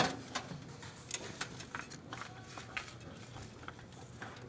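Scattered light clicks and taps, a few a second, from hands and metal parts as a new oil filter is fitted by hand onto the filter housing of a Toyota K-series engine, over a faint steady low hum.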